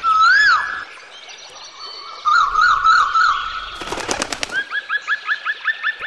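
A sequence of bird calls: a loud whistle that rises and falls at the start, a warbling trill a little over two seconds in, a short rapid rattle of clicks around four seconds, then a quick run of rising chirps, about six a second.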